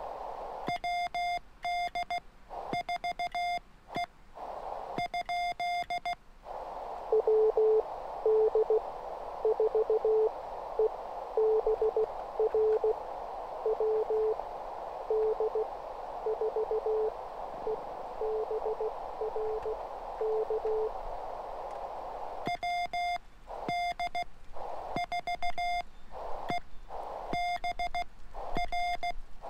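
Morse code on a 20-metre MFJ-9200 shortwave transceiver. For about the first six seconds and again near the end, the operator sends a clean, higher-pitched keyed sidetone with the receiver hiss cutting out around it. In between, a lower-pitched station keys back in Morse over a steady band hiss, and this is the loudest part.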